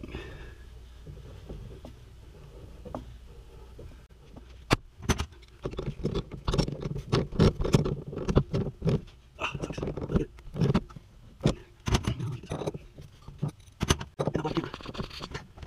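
A brass fitting is threaded by hand onto a water valve. From about five seconds in come repeated sharp metal clicks and clatter as tongue-and-groove pliers grip and tighten it.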